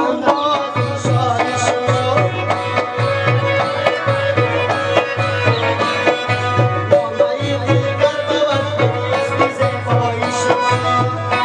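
Middle Eastern-style music: tabla-like hand drums and a plucked-string melody over a steady low bass beat that comes in just under a second in.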